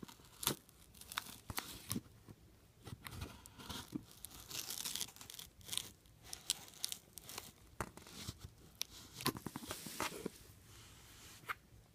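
Toy packaging being torn open and handled: tearing and crinkling, with scattered sharp clicks and taps.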